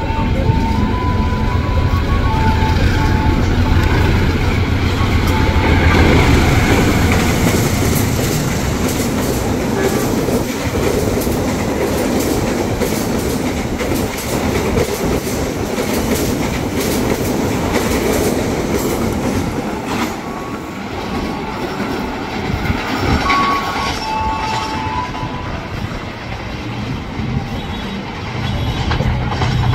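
A diesel-electric locomotive hauling passenger coaches passes close by, its engine giving a heavy low rumble for the first several seconds. After that comes a continuous clickety-clack of wheels over rail joints and points as the train goes through.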